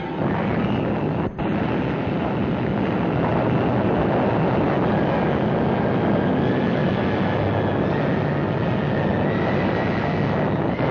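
Atomic bomb blast on an old film soundtrack: a loud, steady rumbling roar that starts abruptly and holds, with a brief dropout about a second in.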